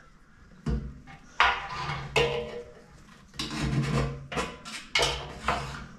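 Metal clanking and scraping as a fuel-level sender unit is worked loose and pulled out of a steel diesel sub tank, in a series of separate knocks and rasps.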